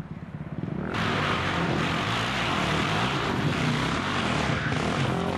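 Off-road dirt bike engines running, with a louder, steady engine noise starting suddenly about a second in.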